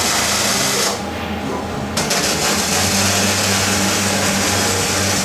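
Hobart Handler 140 MIG welder arc crackling as a bead is laid, with a steady low hum underneath. The crackle stops about a second in and starts again about a second later.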